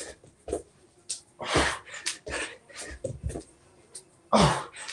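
Hard, forceful exhales of a person exercising flat out, with dull thumps of hands and feet landing on a floor mat during burpees. The two strongest exhales come about one and a half seconds in and near the end, and the last one is partly voiced.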